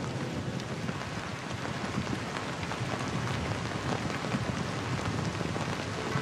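Steady rain falling: an even hiss scattered with many small ticks of individual drops.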